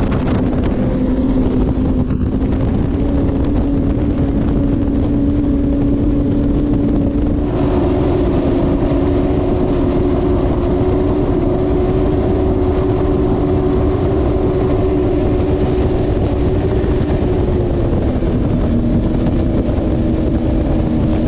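A pair of Mercury Racing 300R V8 outboards running hard at speed, a steady drone over the rush of wind and spray. The engine note steps up about seven seconds in and eases slightly near the end.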